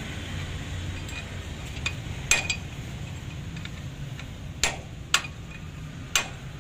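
Hammer blows on a steel punch set against a truck wheel hub's axle nut to turn it: a few sharp metallic strikes, irregularly spaced, each with a short ring. A steady low hum runs underneath.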